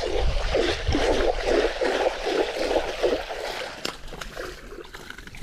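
Hooked barramundi thrashing and splashing at the water's surface, in quick repeated splashes that die down over the last second or two.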